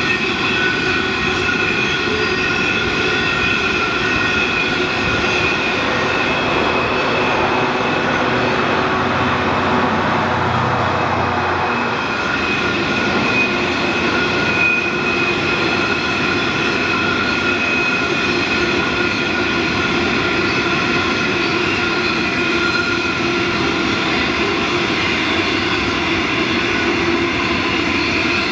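A long string of narrow-gauge coal hopper wagons rolling past with a steady rumble of wheels on rail. Steady high-pitched wheel squeal rings over it throughout.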